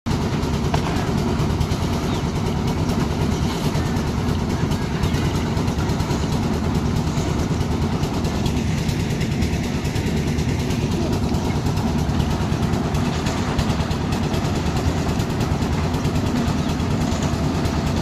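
Concrete mixer's engine running steadily under load.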